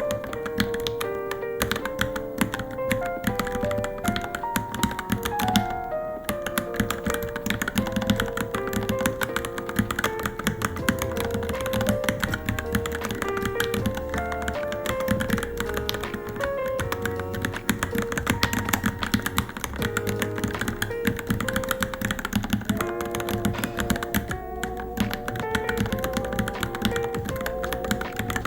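Rapid, continuous typing on a Varmilo Minilo mechanical keyboard, the keystrokes clicking in quick succession, with background music playing a melody throughout.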